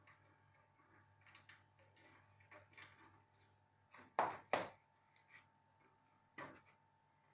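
Aluminium frame parts of a mini CNC machine clicking and knocking as the vertical post is handled and set against the slotted base: small scattered clicks, two sharp knocks close together about four seconds in, and another about two seconds later.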